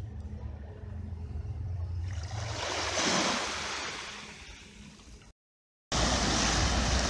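Small sea waves washing up a sandy shore, a low rumble at first, then a wash that swells about two seconds in and slowly fades. After a brief cut to silence, surf washes over rocks.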